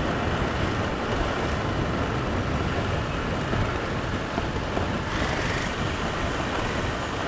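Steady wind and road rumble from riding a bike along a paved road, even throughout.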